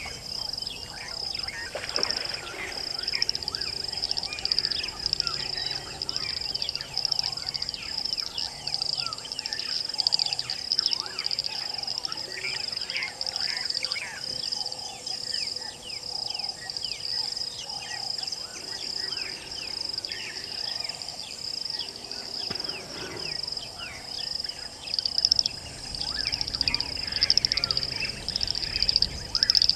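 Waterhole bush ambience: a steady high-pitched insect trill with many short bird and frog calls over it.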